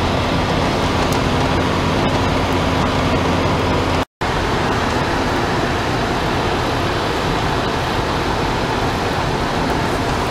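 Steady in-cabin noise of a car cruising at motorway speed, about 120 km/h: a low engine hum under the rush of tyres and wind. A brief dropout about four seconds in; after it the hum is weaker and the rush dominates.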